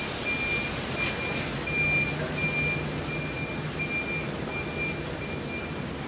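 An electronic warning beeper sounding a steady string of high, even beeps, about one and a half a second, that stops near the end, over a steady low hum.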